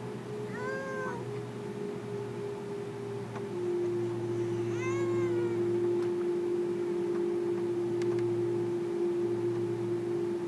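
Airbus A330-300 cabin noise while taxiing: a steady engine hum with a strong tone that drops slightly in pitch and grows louder about a third of the way in. Twice, a short rising-and-falling meow-like cry sounds over it.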